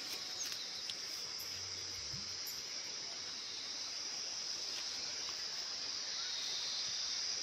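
Steady, high-pitched chirring of insects in an outdoor insect chorus, unbroken throughout.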